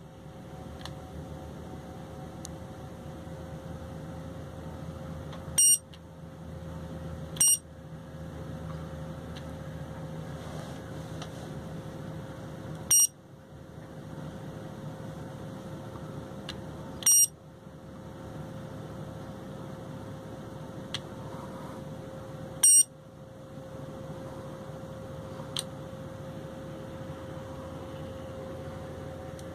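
Handheld infrared thermometer beeping five times, one short high beep each time a surface-temperature reading is triggered, over a steady low hum with a faint constant tone.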